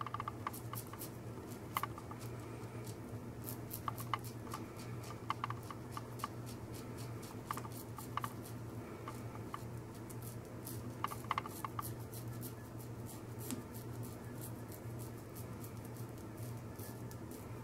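Wolfman WR1-OC safety razor with a Polsilver Super Iridium blade scraping through lathered mustache stubble on the upper lip: many short, quiet, scratchy rasps in quick succession.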